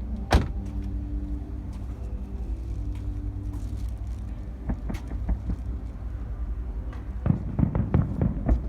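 Fireworks: a single sharp bang just after the start, a few scattered pops, then a rapid cluster of crackling pops near the end, over a steady low rumble.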